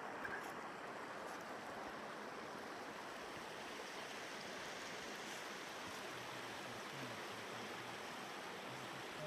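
Steady rushing of a mountain river's running water.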